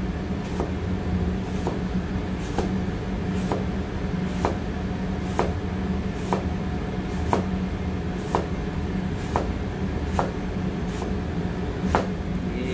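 Chef's knife thinly slicing a red apple on a plastic cutting board, the blade knocking the board about once a second, over a steady low hum.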